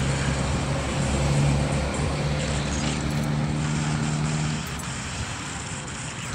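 Vehicle engine running at a steady speed, a low even hum over wind and road noise. The hum fades about three-quarters of the way through.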